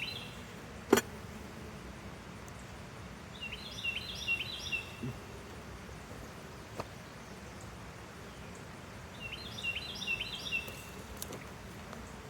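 A songbird sings two short phrases of quick, high chirps a few seconds apart over a steady low hum. A single sharp click about a second in is the loudest moment.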